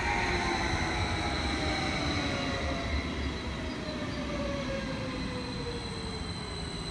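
BLS double-deck electric multiple unit (Stadler KISS) passing through at speed: wheel and running noise with several whines that slide down in pitch as it goes by and draws away, slowly easing off.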